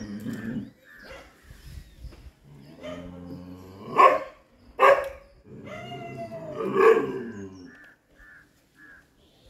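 Chippiparai dog barking up at monkeys in the trees: drawn-out calls broken by sharp, loud barks about four, five and seven seconds in.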